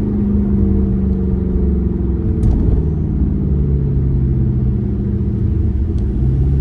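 Car engine and exhaust droning steadily at a light cruise, a low hum whose pitch eases down slightly over the first couple of seconds.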